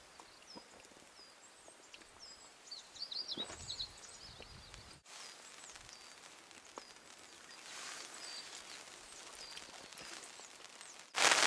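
Small birds calling with a faint series of short, high, downward chirps, with a few brief knocks of handling about three seconds in. Right at the end, heavy rain on a surface cuts in abruptly.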